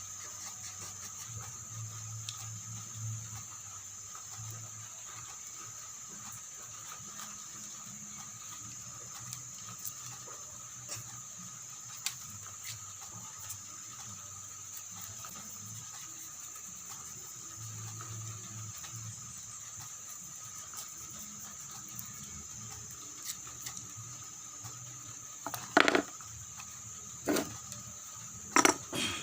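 Small scattered taps and scrapes from hand-carving a coconut shell over a steady high-pitched drone, with a few loud sharp knocks near the end.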